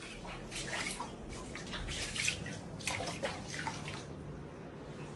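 Floodwater sloshing and splashing indoors: a steady wash of water with a run of irregular splashes through the middle, settling to a steadier wash near the end.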